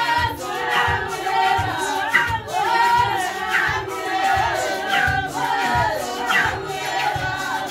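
Church congregation singing a hymn together in chorus, over a steady low beat of about two thumps a second.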